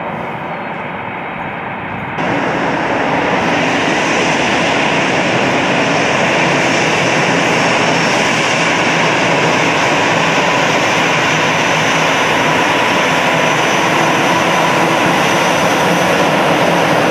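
Twin CFM56 turbofans of a taxiing Airbus A319 at low taxi power: steady jet-engine noise with a thin high whine riding over it. The sound jumps louder and brighter about two seconds in, then holds steady.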